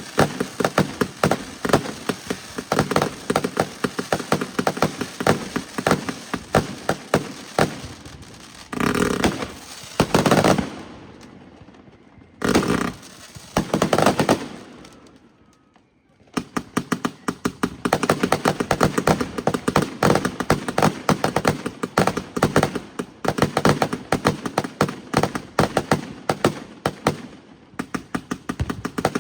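Fireworks going off: a dense run of rapid sharp cracks and pops, with a few louder bursts in the middle. There is a brief lull a little past halfway, then the rapid crackling starts up again.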